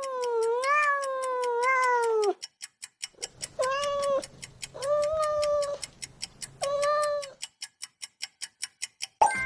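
Domestic cat meowing: one long drawn-out meow, then three shorter meows. Under them runs an even, fast clock-like ticking.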